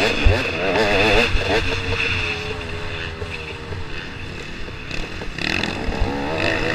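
KTM 250 XC-W two-stroke dirt bike engine ridden hard on a rough trail, its revs surging up and down in quick wobbles, steadier for a couple of seconds in the middle, then climbing again near the end. A few low thuds come in the first second or so.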